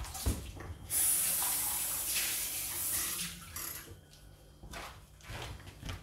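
Espresso machine hissing for about two and a half seconds, a rush of water or steam that slowly fades. A few light clicks follow near the end as the shot glass is handled.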